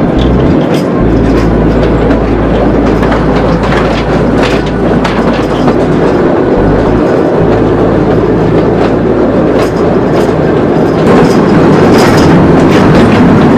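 Narrow-gauge mine train running through a narrow rock tunnel, heard from a riding car: a loud, steady rumble and rattle of the cars with irregular sharp clicks of the wheels over the rails.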